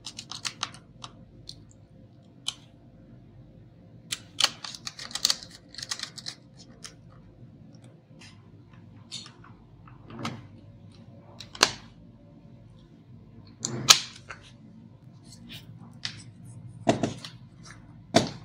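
Irregular clicks and knocks of the plastic and metal parts of a Lenovo ThinkPad T440 laptop being handled during reassembly, including a screwdriver on the heatsink screws and a RAM module being pressed into its slot. Several sharper knocks come in the second half.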